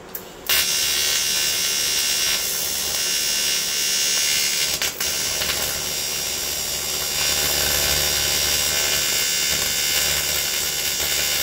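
TIG welder arc on aluminium: a steady buzz that strikes about half a second in, breaks off briefly near the middle, then carries on.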